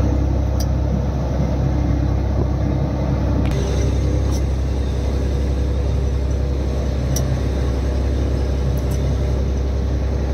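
A fishing boat's engine running steadily with a low, even hum. A few light clinks of a ladle against steel pots and plates sound over it.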